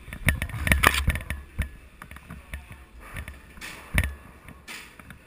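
Handling noise from a GoPro carried by a player on the move: thumps and rustling for about the first second and a half, then scattered sharp clicks and a loud knock about four seconds in.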